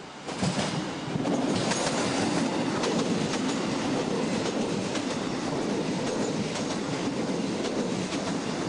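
Passenger train passing close by: a steady rolling rumble of coaches on the rails, with sharp wheel clicks that are thickest in the first few seconds. The noise comes on suddenly just after the start and stays loud.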